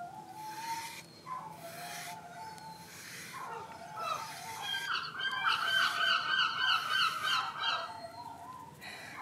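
A husky-malamute's small yodelling vocalizations: soft wavering whine-like calls, then about five seconds in a louder, higher warbling yodel lasting about three seconds.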